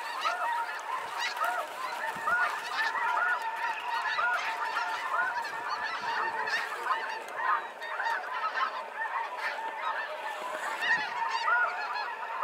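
A large flock of snow geese calling, a dense, unbroken chorus of many overlapping honks.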